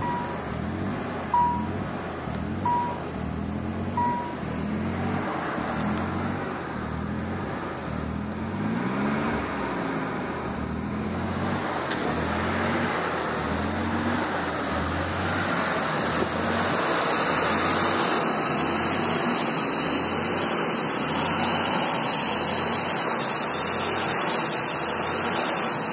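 Nissan 300ZX's 3.0-litre V6 idling unevenly, its note wavering up and down: the bad idle of a vacuum leak. A chime beeps about every second and a half for the first few seconds, and a steady hiss grows louder through the second half.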